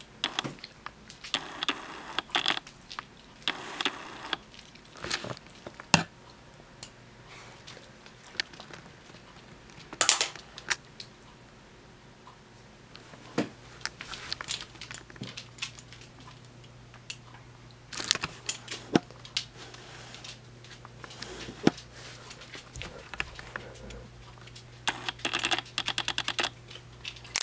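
Scattered light clicks and taps, some in quick rattling runs near the start and end. A faint low steady hum comes in after several seconds.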